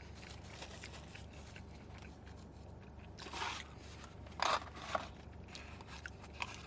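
Food packaging being handled: a few short rustling and scraping noises with scattered small clicks, the loudest a bit past the middle.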